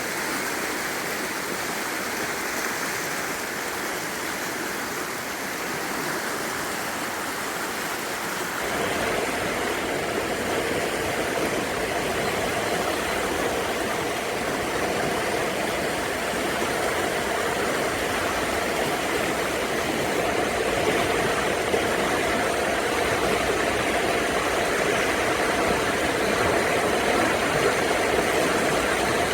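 Rushing river water, a steady noise. About nine seconds in it suddenly becomes louder and deeper, with more low rumble.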